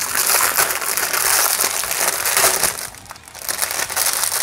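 Clear plastic packaging bag crinkling as hands work a spiral-bound notebook out of it, with a short lull about three seconds in before the crinkling starts again.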